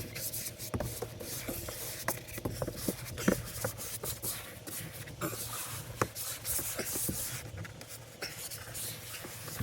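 Irregular scraping and rubbing with scattered light knocks and taps, as of hand work on materials.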